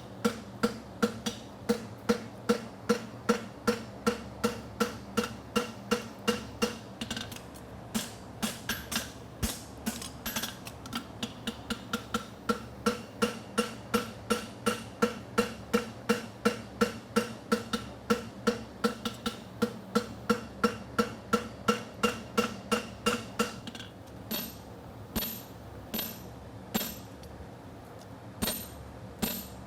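Farrier's hammer striking a hot steel draft bar shoe on the anvil, a steady run of ringing blows at about three a second while the shoe's branch is hemmed. After about 24 seconds the blows come slower and sharper. A cooling fan hums underneath.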